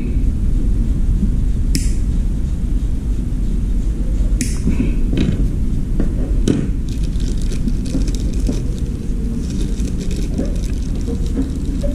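Steady low rumble under small handling sounds: a few sharp clicks, then crinkling plastic as a bag of small parts is handled.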